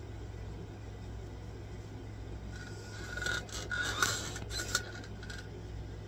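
A short run of scratchy rubbing and scraping noises about halfway through, over a steady low hum.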